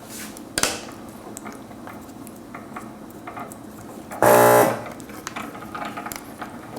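Replacement water pump in a SciCan STATIM 2000 cassette sterilizer giving one loud, harsh buzz of about half a second, about four seconds in, with a few faint clicks beforehand. The pump is running dry because it was never primed.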